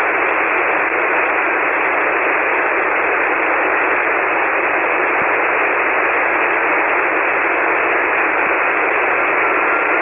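Steady band-noise hiss from a ham transceiver receiving 40-metre SSB with no station transmitting, cut off sharply above and below the narrow voice passband.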